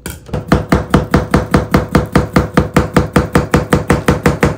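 Kitchen knife chopping a cucumber into slices on a plastic cutting board, in rapid, even strokes of about seven a second.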